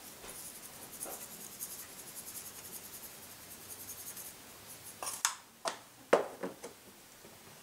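Light, fast, scratchy rubbing for about four seconds, then four or five sharp knocks near the end.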